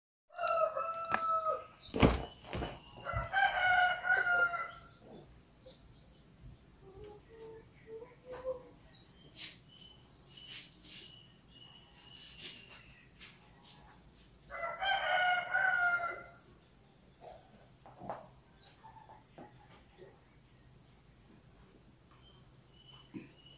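A rooster crowing, twice in the first few seconds and again about fifteen seconds in, over a steady high chorus of insects. There is a sharp knock about two seconds in.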